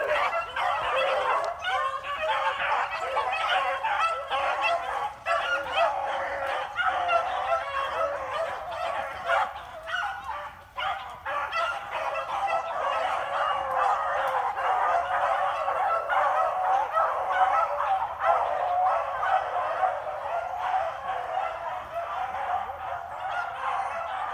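A pack of beagles in full cry, many hounds baying together over one another, running a freshly jumped rabbit. The chorus eases briefly about ten seconds in.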